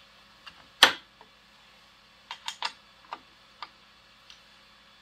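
Metal clicks of a hand tool working a bolt on a Frankford Arsenal X-10 reloading press as the bolt is tightened: one sharp, loud click about a second in, then a scatter of lighter, irregular clicks.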